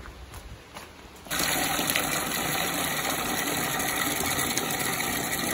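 Water gushing from a yard hydrant into a black rubber bucket, starting suddenly about a second in and running steadily as the bucket fills.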